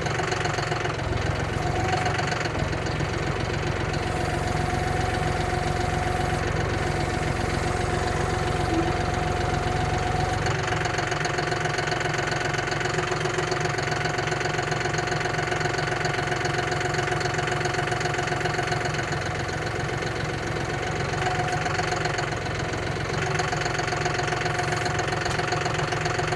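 Engine of a lifting machine running steadily with a droning hum, its sound shifting slightly about ten seconds in and again near the end.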